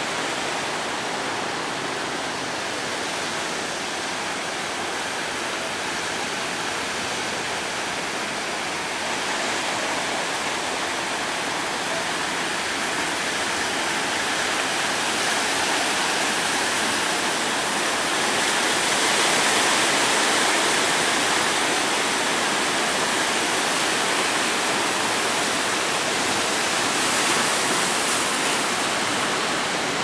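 Surf breaking on the shore: a continuous rushing hiss of waves that swells slightly about two-thirds of the way through.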